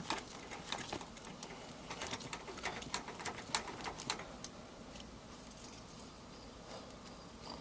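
Faint scattered clicks and light rubbing of a stock shift knob being twisted off the threaded shift lever by hand, thickest in the first half, then fading out.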